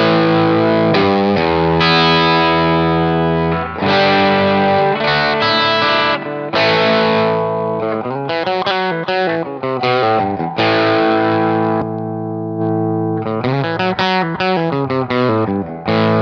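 Overdriven electric guitar: a 2019 Les Paul R7 with Patent 64 pickups through an engaged BJFe Flame Top transparent overdrive into a Marshall 1986-style tube head and a mic'd Greenback speaker. Ringing held chords give way to quick single-note runs in the second half, with a touch of reverb.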